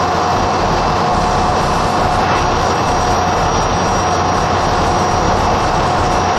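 Ship's engine-room machinery running: loud, steady noise with a constant mid-pitched whine and a thin, high whistle above it.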